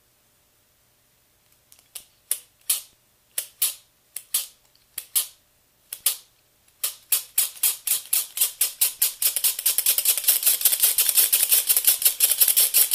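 Small plastic gears of a CD-ROM drive's tray mechanism clicking as they are worked by hand. Scattered single clicks come first, then a fast, even run of clicks over the last third.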